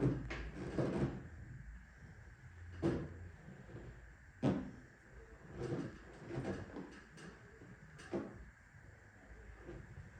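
Hands working on a person's back during a massage: soft, irregular thumps and rubs, about seven in ten seconds.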